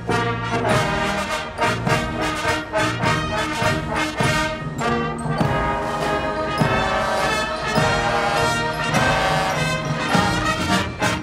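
Brass-and-drums fanfare corps playing: massed trumpets, fanfares and trombones sounding held chords over snare drum strokes, with timpani and a drum kit.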